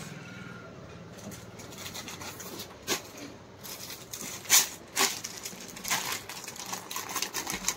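Clear plastic packaging crinkling and rustling as a folded suit in its bag is handled, with sharp irregular crackles, the loudest about three, four and a half and five seconds in.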